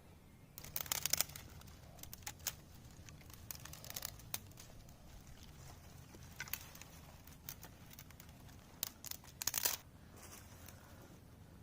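Irregular crunching and crinkling of forest leaf litter and twigs, in short clusters with gaps between, loudest near the end.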